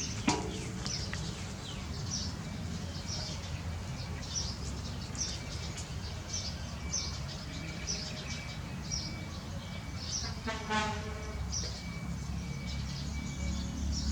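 A bird chirping over and over, about one and a half short high chirps a second, over a low steady hum. A short pitched call cuts in about ten and a half seconds in.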